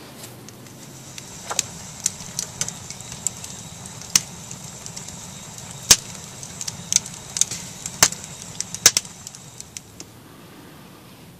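Wood fire crackling: irregular sharp pops and snaps over a steady hiss, stopping about ten seconds in.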